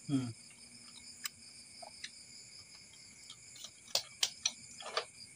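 Crickets chirring in a steady high trill, with a few sharp clicks scattered through it, the loudest about four seconds in, and a brief low voice sound at the very start.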